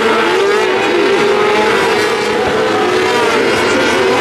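Several micro sprint cars' 600cc motorcycle engines racing together, their revs rising and falling in many overlapping pitches as they power through the turns and pass close by.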